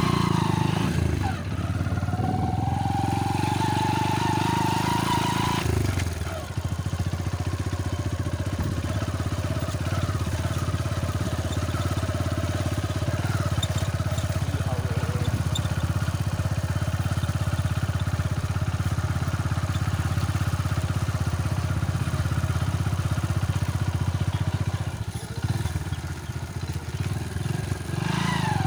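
Motorcycle engine running under way, its pitch rising for about four seconds and then dropping suddenly about six seconds in, after which it runs steadily.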